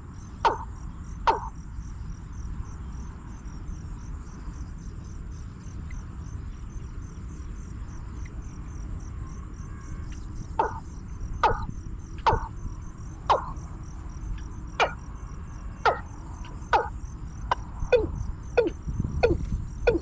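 Insects chirring with a fast, steady high pulse, and over it a bird call of short, loud, down-slurred notes: two near the start, then from about ten seconds in roughly one a second, coming faster near the end.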